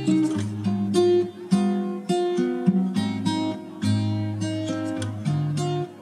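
Background music: an acoustic guitar strumming chords, with the chord changing about every second.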